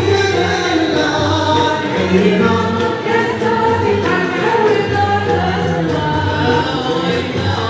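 Moroccan madih (Sufi praise song) performed live: men's voices singing together in long, melismatic phrases, with violins and oud accompanying.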